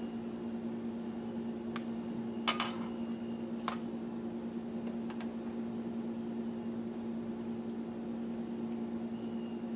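A steady low hum from a running kitchen appliance, with a few light clinks and taps of utensils on a plate over it, the loudest about two and a half seconds in.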